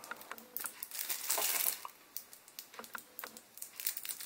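A kitchen knife cutting into the plastic-wrapped pack of trading cards: a run of light clicks and taps, with a longer rasping crinkle of the wrapping about a second and a half in.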